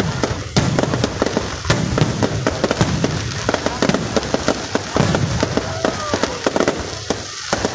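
Aerial fireworks shells bursting in a dense, continuous barrage of bangs and crackles, several every second.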